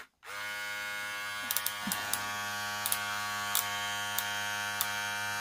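Philips Series 5000 cordless hair clipper switched on, its motor and blades running with a steady buzz. A few light clicks sound over it from about a second and a half in.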